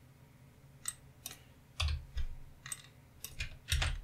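Computer keyboard being typed on: scattered, irregular key clicks, with a couple of heavier keystrokes about two seconds in and near the end.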